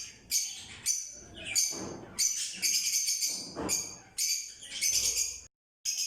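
A flock of small pet parrots, lovebirds among them, chattering in shrill, overlapping chirps in quick bursts. The sound drops out completely for a moment near the end.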